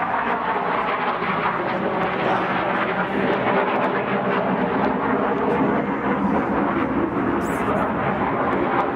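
Aircraft flying overhead: loud, steady engine noise that drowns out the talk.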